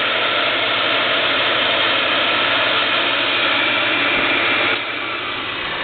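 Dust collector fan on a Kalamazoo 12-inch disc sander running with a steady airy noise over the sander's 1 hp motor. About five seconds in the fan is switched off and its noise drops away, leaving the motor running.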